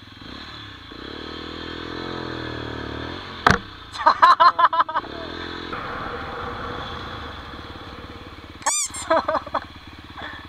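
125 cc enduro motorcycle engine running while the bike is ridden, its pitch rising and falling with the throttle. A quick series of loud, sharp pulses about four seconds in, and another shorter series near the end.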